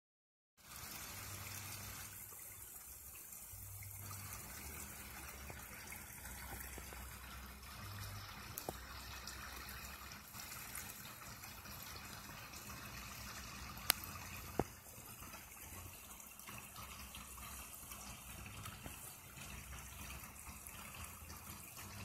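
Shallow creek babbling and trickling steadily over a riffle of stones. Two sharp clicks sound close together about two-thirds of the way through.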